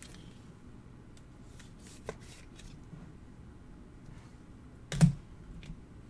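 Quiet handling of a trading card in a clear plastic magnetic card holder, with a few light clicks, then one sharp clack of the holder about five seconds in.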